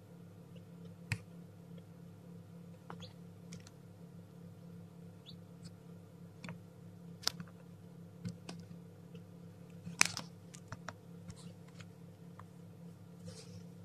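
Scattered light clicks and taps, about a dozen, the loudest about ten seconds in, over a steady low hum.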